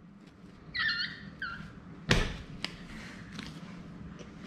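A child's brief high-pitched giggle about a second in, then a single sharp thud just after two seconds, followed by a few faint clicks.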